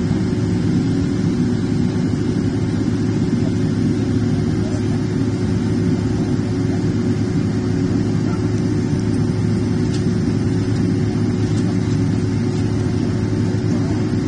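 Steady low hum inside a Boeing 777's cabin, a constant mid-pitched tone over an even low rumble that does not change.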